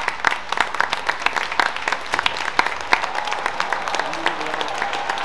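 Audience applauding: a dense, irregular patter of many hands clapping that keeps going without a break.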